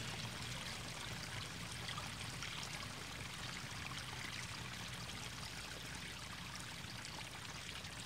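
A faint, steady rushing noise like running water, slowly fading.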